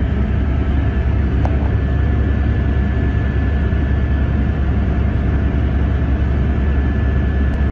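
Steady aircraft engine and cabin noise: a heavy low rumble under an even hiss, with a faint constant whine.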